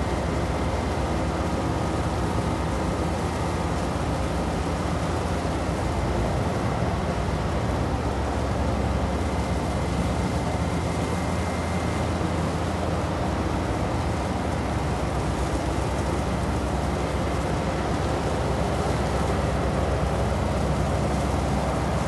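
Steady engine drone of a boat under way, with a constant rush of wind and water noise over it.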